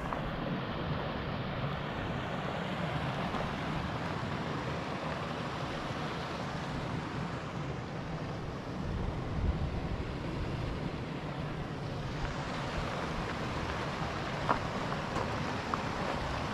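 Wind buffeting the action camera's microphone: a steady rushing noise with an uneven low rumble, and a few faint clicks near the end.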